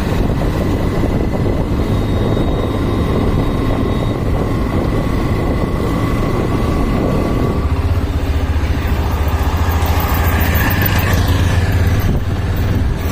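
Hero Xtreme 125R motorcycle with a loud aftermarket exhaust running steadily at low road speed, its single-cylinder exhaust note growing stronger about eight seconds in.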